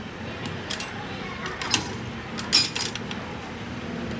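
Metal tools and parts clinking and knocking in a series of sharp clicks, the loudest a quick cluster of ringing metallic clinks a little past halfway, over a steady low background hum.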